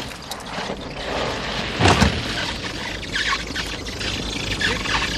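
A car that has slid on snow into a parked car: a hard thud about two seconds in, then several short high squeaks, over a steady low rumble.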